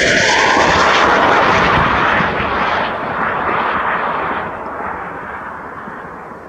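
Metis-M anti-tank guided missile in flight after launch, its rocket motor hissing loudly at first and fading steadily as it flies away.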